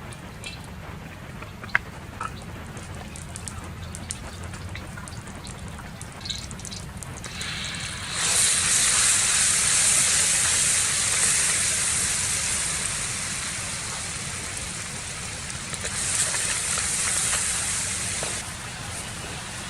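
Food sizzling in hot oil in a pan, starting abruptly about eight seconds in, easing off, then flaring up again briefly near the end. A steady rain-like rumble lies underneath.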